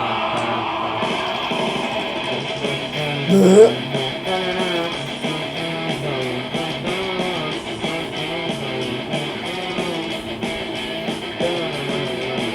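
Pop music with strummed guitar and a steady beat, playing from a portable speaker. A brief loud sound rising in pitch cuts in about three and a half seconds in.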